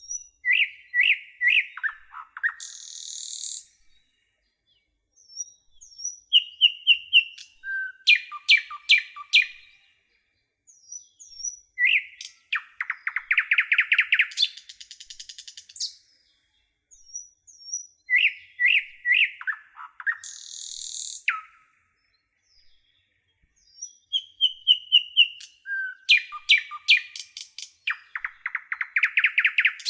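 Nightingale singing: loud phrases of a few seconds each, built from rapidly repeated notes, fast trills, clear whistles and high buzzy rattles, separated by short pauses of about two seconds, five phrases in all.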